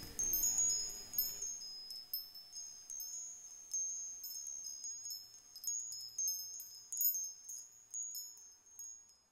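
High tinkling chimes struck at irregular moments and ringing on, thinning out toward the end; a lower music bed under them fades away in the first second or so.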